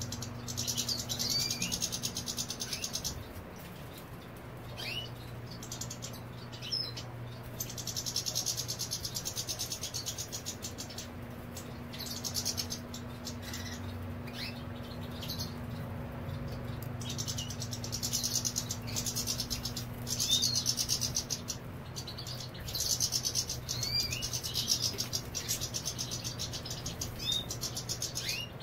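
Caged European goldfinches twittering: phrases of rapid high notes lasting a second or more, broken by short chirps, over a faint steady low hum.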